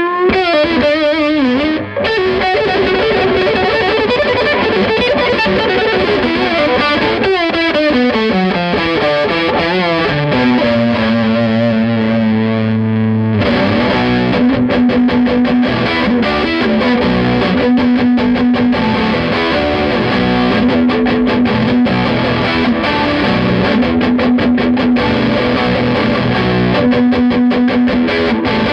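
Electric guitar played through a Fender Champ 12 amplifier with the gain turned all the way up, giving a heavily distorted tone. Notes slide downward through the first half, one note is held, then from about halfway in comes a fast picked riff hammering a repeated low note.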